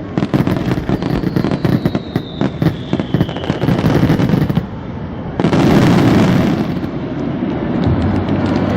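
Aerial fireworks bursting: a dense run of rapid crackles and pops, with a thin whistle falling in pitch about a second in, then a single loud burst about five and a half seconds in that dies away over a second or so.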